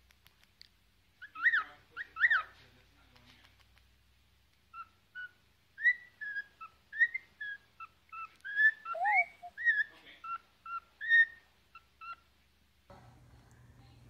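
Cockatiel whistling: two sweeping chirps, then a tune of short whistled notes, two or three a second, which stops abruptly near the end.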